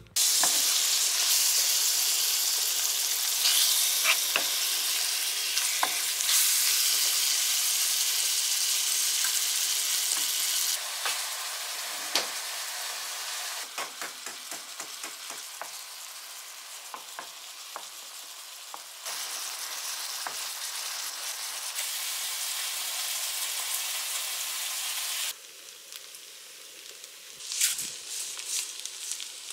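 Chicken, vegetables and rice sizzling in a non-stick frying pan while being stirred, with frequent small clicks and scrapes of a metal spoon against the pan. The sizzle jumps abruptly louder and quieter several times.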